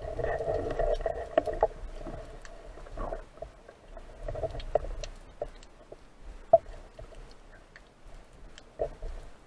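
Water sloshing and splashing in uneven bursts, with scattered sharp clicks and knocks, one louder knock a little after halfway.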